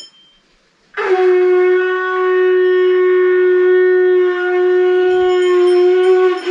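Conch shell (shankha) blown in one long, steady, loud note starting about a second in and lasting about five seconds, then a second blast beginning at the very end. The family says this conch is cracked and its sound has changed. A brass hand bell rings faintly behind it.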